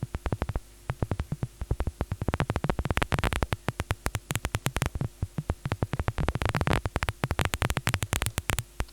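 Synthesized paper-crumpling sound from the Vital software synth: a dense run of irregular crackling clicks that bunch together and thin out again, played through a low-pass filter with its resonance taken out. It is still too sparse to pass for real paper, which needs to be a lot busier.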